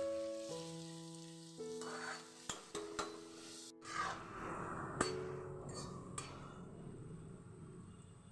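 Soft background music for the first few seconds, then it cuts off and potato slices are heard sizzling in hot oil in a metal kadai, with a spatula scraping and knocking against the pan a few times.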